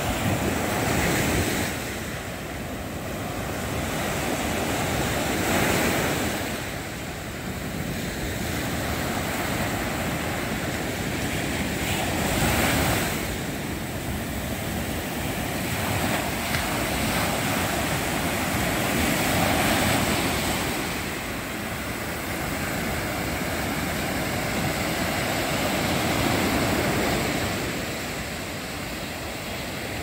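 Small sea waves breaking and washing up a sandy beach at high tide, the surf swelling and falling back every six seconds or so.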